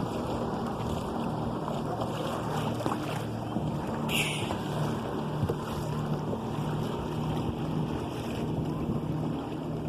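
Water rushing along the hull of a sailing canoe under way, with wind buffeting the microphone and a steady low hum underneath. About four seconds in there is a brief splash-like hiss.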